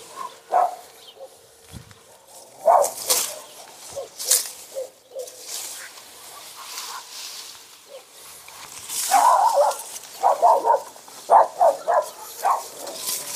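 Rustling and handling of fleece frost covers being pulled off oleander shrubs, with scattered sharp rustles. About nine seconds in, a quick run of short pitched cries comes and goes for a few seconds, louder than the rustling.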